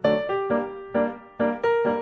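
Background music: piano or keyboard notes played in a steady rhythm, struck about three times a second.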